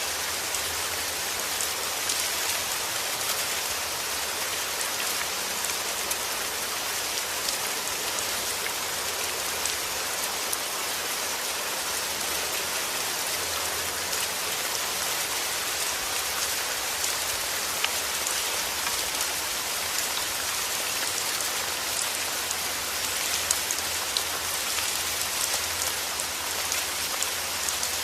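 Steady heavy rain falling, a dense even hiss with many fine drop ticks and a low rumble underneath.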